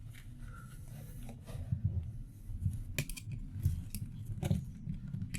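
Light handling sounds of a brass valve being taken apart with hand tools: scattered small metallic clicks and soft knocks.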